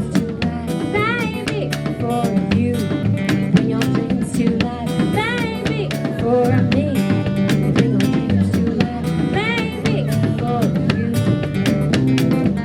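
Live acoustic music: a strummed and plucked acoustic guitar playing an instrumental passage of a folk song, with a few short melodic phrases that rise and fall in pitch over it.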